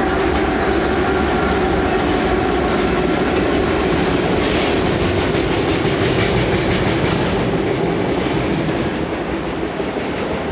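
Freight train of tank cars rolling across a railway bridge: a steady, heavy rumble of wheels on rails that eases slightly near the end.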